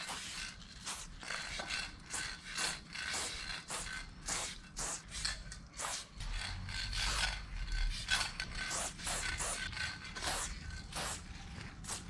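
Aerosol spray paint can hissing in many short, irregular bursts, a few a second, as lines and fill are sprayed.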